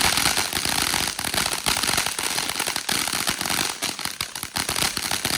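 Ground firework going off with dense, rapid crackling over a steady hiss, many small pops a second without a break.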